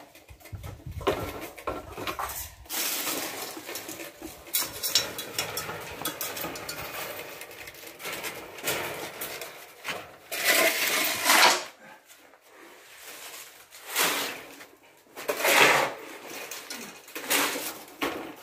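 Metal objects clattering and clinking as they are handled, with repeated knocks and louder rattling spells about ten, fourteen and sixteen seconds in.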